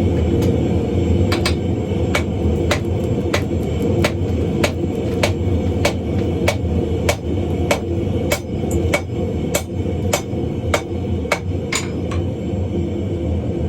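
Hammer blows on hot coil-spring steel being drawn out into a drift, striking at a steady pace of about three blows every two seconds. A couple of quicker, lighter blows come near the end. A steady low rumble runs underneath.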